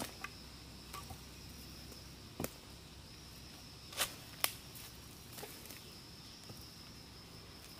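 Forest ambience: a steady, high-pitched insect drone, with a few sharp clicks or snaps about two and a half seconds in and twice around four seconds in.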